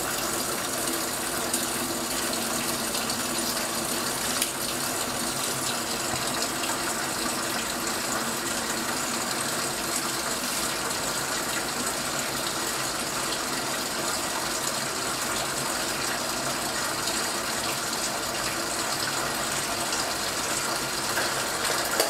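An LG top-loading washing machine filling, with water gushing steadily into the drum and splashing onto a load of leafy vegetables.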